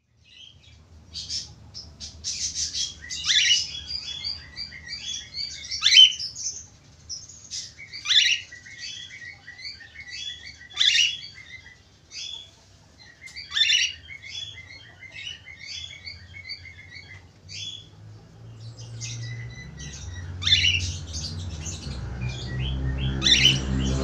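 Cockatiel singing: quick runs of high chirps and warbled whistles, broken every few seconds by a louder, sharp call.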